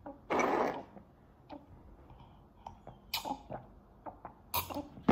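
A small child drinking water from a glass: breathy sips and slurps into the glass, with a few small clicks.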